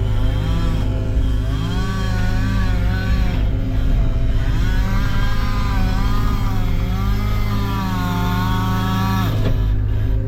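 Two-stroke chainsaw revved up, held at speed and let back down about four times, as if making a series of cuts. Under it runs a steady low engine drone.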